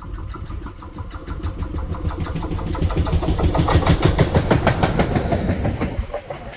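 A train passing close by: a rhythmic mechanical clatter that grows louder to a peak about four to five seconds in, then falls away about six seconds in.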